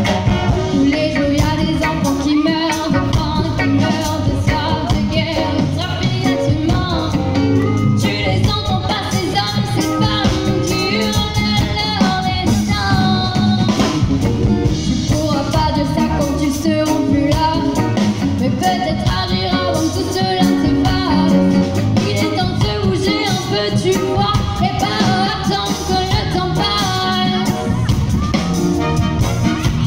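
Live band performing a song: a woman sings lead over electric guitars, a horn section, keyboards and drums.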